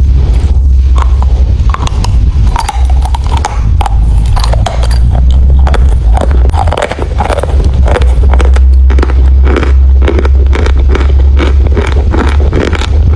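Chalk being bitten and chewed right at the microphone: a dense, loud run of crisp crunches and cracks over a constant low rumble.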